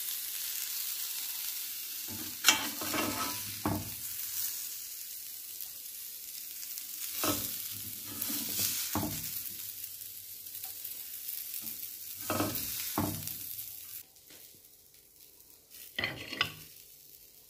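Food sizzling in a frying pan, with a utensil scraping and knocking against the pan every few seconds. The sizzle dies away about fourteen seconds in, leaving a couple of last knocks.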